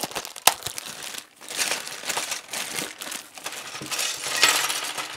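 Thin clear plastic bag crinkling as hands open it and work the small LEGO parts inside, with a sharp click about half a second in and the rustling growing louder near the end.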